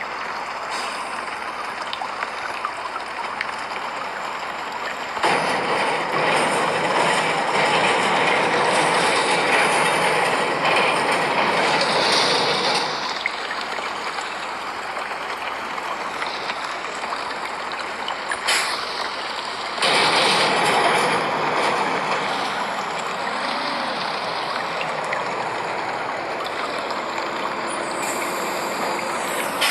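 Rain and traffic on a wet street: buses pass with their tyres hissing on the wet road, loudest about five seconds in and again about twenty seconds in.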